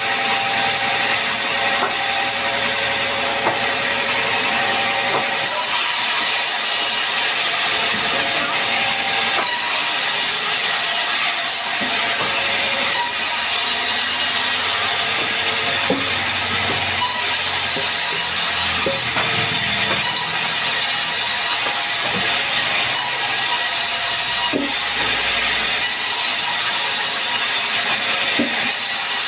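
Sawmill bandsaw running and cutting sengon wood: a loud, steady hiss with scattered small clicks.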